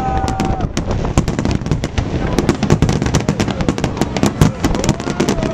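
Aerial fireworks bursting: a dense, rapid crackle of many small cracks and pops, with a few louder bangs standing out.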